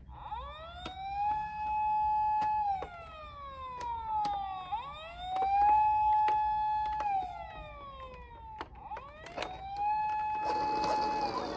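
Toy ambulance's electronic siren sounding a wail three times: each time the tone sweeps up, holds steady, then slides slowly down. Sharp clicks and knocks come between and over the cycles, and a hissing rush starts near the end.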